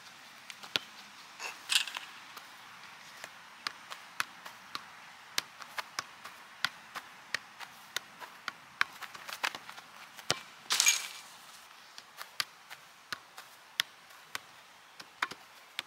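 Soccer ball being juggled and kicked: a steady run of sharp, irregular taps as boot meets ball. Two louder, longer impacts come about two seconds in and again near eleven seconds.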